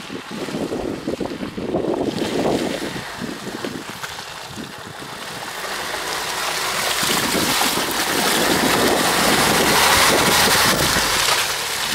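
A four-wheel-drive Hyundai SUV's engine and tyres working through deep, muddy ruts, growing steadily louder as it approaches and passes close by. Wind buffets the microphone.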